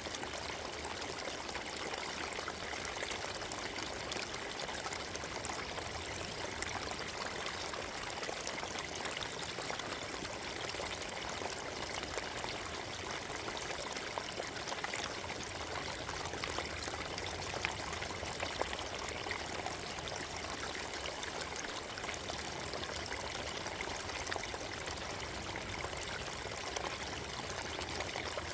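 Forest stream flowing over stones, a steady babble of running water with fine splashy trickles.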